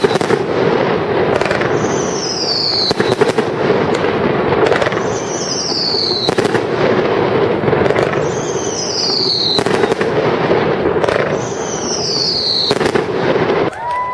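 Fireworks display with shells bursting in a rapid run of sharp bangs and crackles over a continuous rumble. A high whistle falling in pitch comes back about every three seconds.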